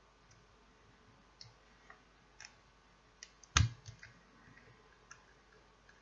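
Small clicks as the parts of a soldering helping-hands stand and its LED magnifier are handled and fitted together, with one louder sharp click about three and a half seconds in as the magnifier is pushed onto the stand's clamp arm.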